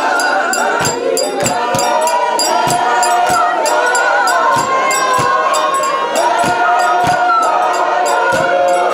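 A congregation singing a hymn together in many voices, over a steady beat of a little under two strikes a second.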